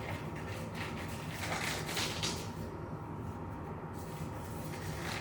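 Soft, brief rustling of disposable exam gloves being pulled on and handled, a few times, over a steady room hum.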